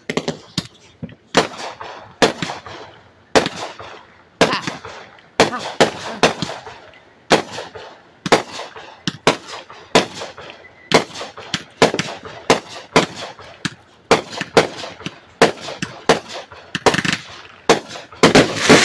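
A consumer aerial firework cake firing one long run of shots: sharp pops about two a second, each ringing briefly as the shells burst overhead. The shots crowd together and are loudest near the end.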